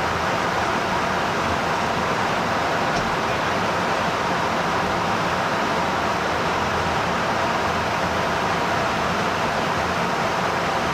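Steady rushing noise of airflow and engines heard inside an aerial refuelling tanker's boom operator station in flight, even and unchanging throughout.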